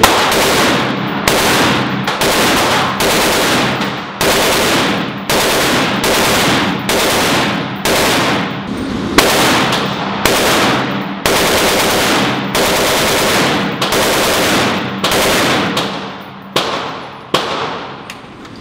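HK G36 5.56 mm rifle firing short bursts of automatic fire again and again, each burst ringing off the walls of an indoor range, ending with two single shots.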